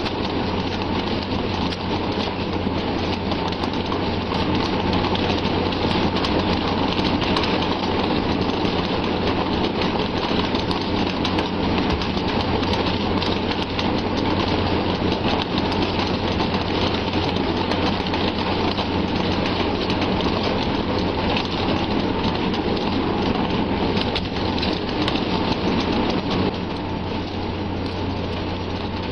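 Steady, dense rushing noise over a low steady hum on the deck of a working fishing vessel: wind and sea with the ship's engine running. It drops a little near the end.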